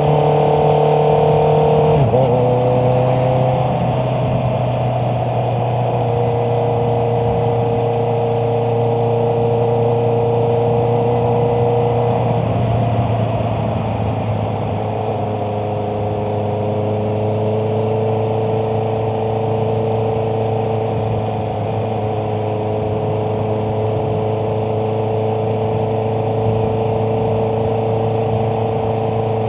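Honda CBR650R's inline-four engine running steadily under way. Its pitch steps down sharply about two seconds in and a little again around twelve seconds.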